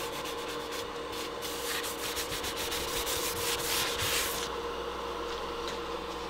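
Paper towels rustling and crinkling as they are handled and smoothed by hand, for about the first four and a half seconds, over a steady appliance hum that is left alone near the end.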